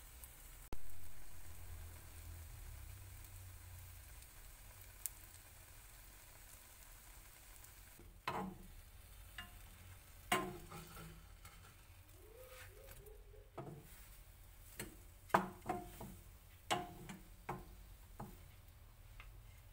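Egg-soaked bread frying in a nonstick pan with a faint, steady sizzle, and a sharp knock just after the start. From about eight seconds in, a spatula and chopsticks knock and scrape against the pan in a string of sharp clacks as the French toast is lifted and flipped.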